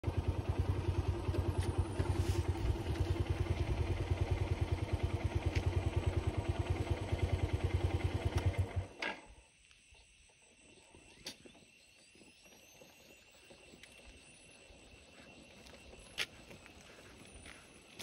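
An engine idling with an even, rapid low beat that stops abruptly about nine seconds in, as if switched off. After that there is faint outdoor quiet with a few light clicks.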